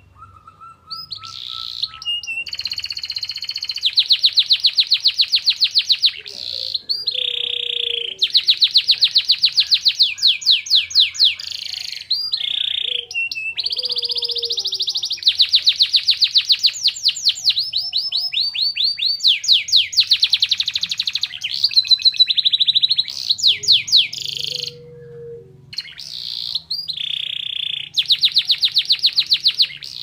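Domestic canary singing a long song of fast rolling trills in several phrases with short breaks between them, worked with borrowed white-eye (pleci) song phrases.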